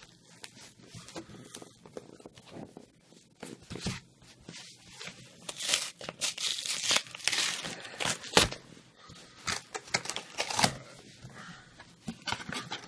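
A cardboard shipping box being torn open by hand: packing tape and its label peeled and ripped from the lid, with rustling and scraping and a louder run of tearing in the middle, then a few sharp rips as the cardboard flap is pulled up.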